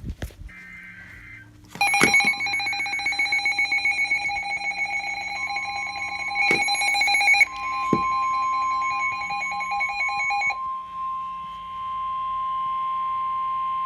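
Emergency alert tones. A brief warbling data burst comes first. A rapidly pulsing electronic alarm beep follows for about nine seconds, overlapped and then followed by a steady single-pitched warning tone near 1 kHz, like the NOAA Weather Radio 1050 Hz alarm, which cuts off just before the next broadcast warning.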